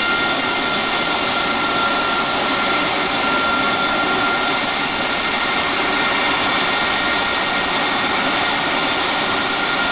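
AV-8B Harrier II's Rolls-Royce Pegasus turbofan running steadily on the ground: a loud, even jet roar with a high, steady whine over it.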